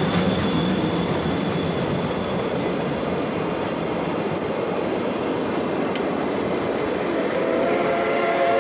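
Old-type passenger coaches behind steam locomotive C58 363 rolling past, a steady rumble of wheels on the rails. About seven seconds in, the locomotive's steam whistle starts to sound, several tones together.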